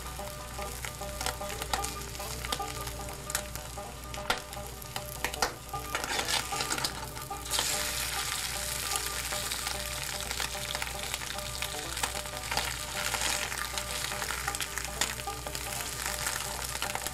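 Food deep-frying in hot oil: a steady sizzle dotted with sharp crackles and pops, which grows louder and fuller about six to eight seconds in.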